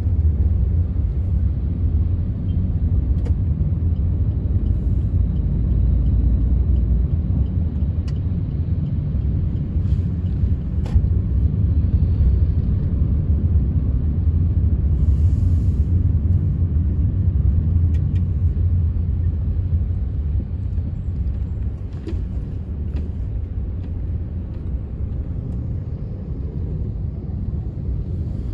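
Steady low rumble of a moving vehicle, engine, road and wind noise heard from on board.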